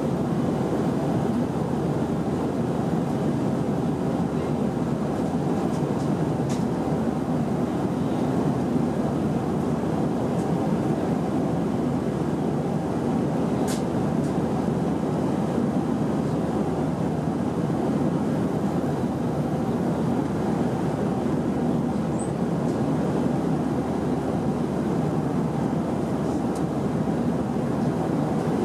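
Airbus A319 cabin noise heard from a window seat over the wing in flight: the steady, even roar of the engines and airflow, with no change in pitch or level.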